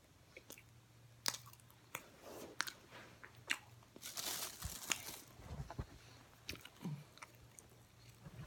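Oven-baked cornstarch chunks being bitten and chewed: a series of sharp, separate crunches, thickest about four to five seconds in.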